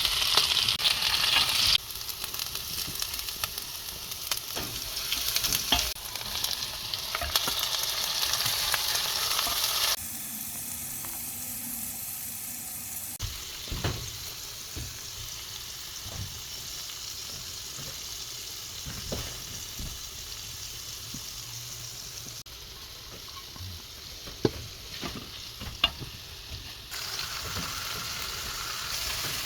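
Potatoes and cumin seeds sizzling as they fry in hot oil in a pan, with sharp clicks now and then from stirring. The sizzle's loudness changes abruptly several times.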